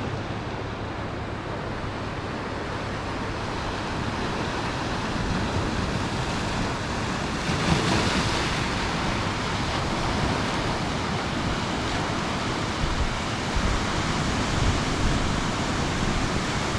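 Ocean surf washing steadily onto the shore, with a wave breaking more loudly about halfway through and wind rumbling on the microphone.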